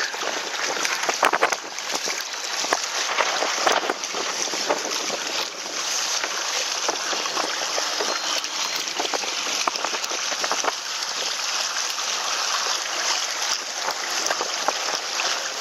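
Water rushing and splashing steadily along the hulls of a Hobie sailing trimaran kayak under way in choppy water, with frequent short splashes.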